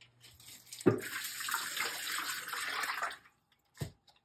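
Kitchen sink faucet running for about two seconds, starting suddenly about a second in and stopping shortly after three seconds. A single knock follows near the end.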